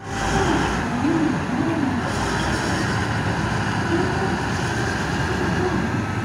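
Large mining haul truck's diesel engine running as the truck rolls slowly past, a steady deep rumble with some wavering tones riding on it.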